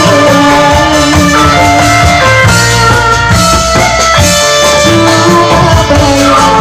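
Loud live music from an Indramayu reog troupe's band, with drums and a melody line, and a woman singing into a microphone over it.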